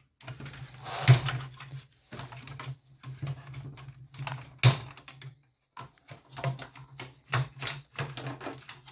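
Irregular plastic clicks, snaps and rattles as a wiring loom and its clips are pulled free of a Land Rover Discovery 4's plastic centre console housing, the sharpest snaps about a second in and about halfway through.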